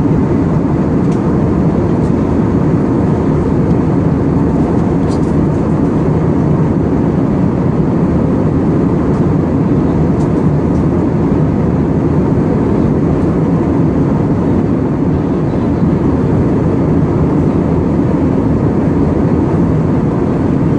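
Steady cabin noise inside an Airbus A320-family airliner in cruise: engine and airflow noise, heaviest in the low range and even in level.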